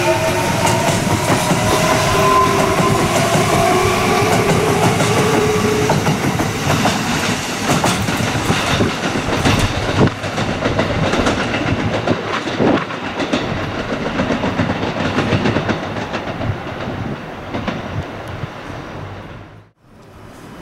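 Kintetsu limited express electric train pulling out of the station. Its motor whine rises in pitch over the first several seconds as it speeds up, and the wheels then clatter over the rail joints. The sound fades as the train leaves, and it cuts off abruptly near the end.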